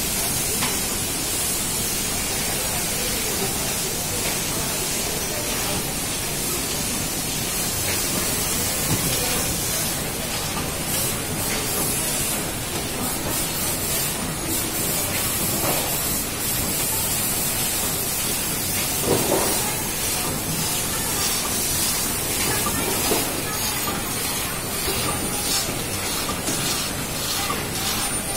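Biscuit packing machine running: a steady mechanical noise with a hiss and no clear beat.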